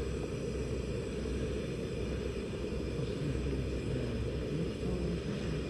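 Steady low rumbling noise, even throughout, with nothing sudden in it.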